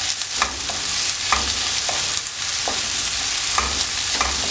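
Sliced shallots sizzling in hot oil in a non-stick pan as they are sautéed, with a spatula knocking and scraping against the pan about once a second as they are stirred.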